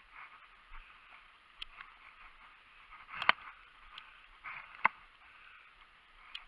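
Footsteps crunching on a gravel road, with gear and clothing rustling and a few sharp knocks, the loudest about three seconds in and another about five seconds in.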